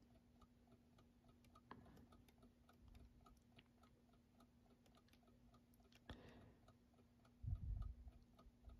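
Faint, even ticking of a Westclox Big Ben Style 7 alarm clock movement running with its escapement being oiled, about four ticks a second. A couple of brief low handling knocks come near the end, over a faint steady hum.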